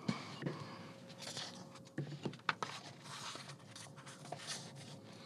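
Pencil marking a book page through the slots of a ruler: short scratches and light clicks of pencil and ruler, with soft paper handling between them.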